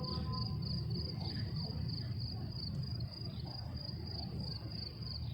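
Crickets chirping in a steady, evenly repeating high trill over a low background rumble, as a muezzin's long held note of the azan ends right at the start.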